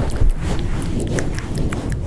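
Close-up ASMR microphone handling: hands rubbing and swirling over the microphone make a steady low rumble, with scattered small crisp clicks over it.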